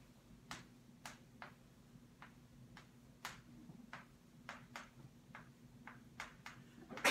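Faint, sharp clicks, about two a second at uneven spacing, over a steady low room hum.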